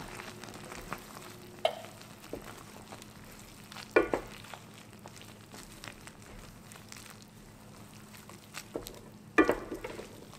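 Instant noodles being stirred and lifted with silicone-tipped tongs in a pan of simmering broth: a steady low hiss from the pan, broken by a few sharp knocks of the tongs against the pan, the loudest about four seconds in and near the end.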